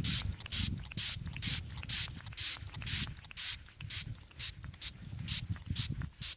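A muddy brooch being rubbed clean while water is squirted onto it from a bottle: short, rhythmic hissing strokes, about two a second.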